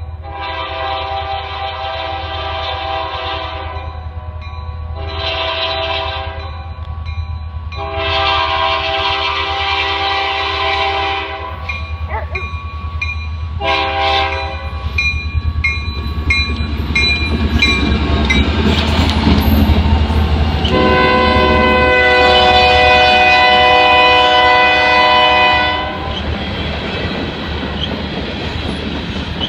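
Diesel freight locomotive sounding its multi-tone horn as it approaches: a long blast, then two more long blasts, a short one, and a final long blast, the loudest, as the locomotive passes (the long-long-short-long grade-crossing signal). Beneath the horn are the rumble of its diesel engine and the noise of the wheels on the rails. Near the end the freight cars roll by with a clickety-clack.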